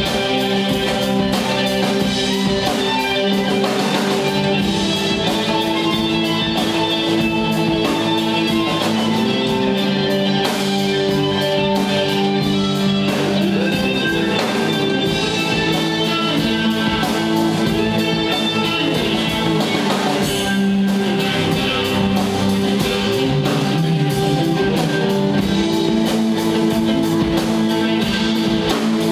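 Live rock band playing electric guitar, violin and drum kit.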